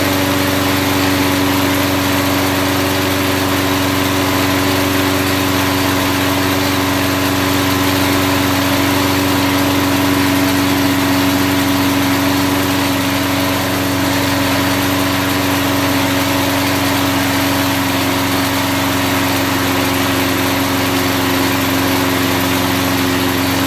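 Four-stroke push lawn mower engine running steadily at normal mowing speed, its crankcase lubricated with car wax in place of oil. The pitch holds even throughout.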